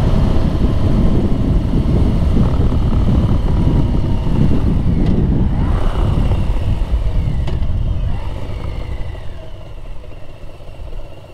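Harley-Davidson Street Bob's V-twin engine and wind noise while riding: a heavy, steady low rumble. It dies down over the last few seconds.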